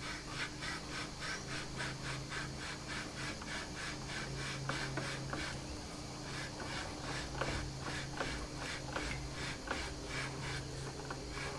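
Rhythmic metal-on-metal rasping, about three strokes a second, as a burred, peened steel shaft is worked back and forth out of the gearbox housing. A faint steady hum runs underneath.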